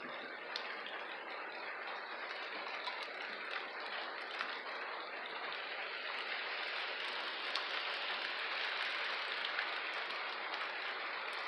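Steady hiss of rain falling during a thunderstorm, with no distinct thunderclap.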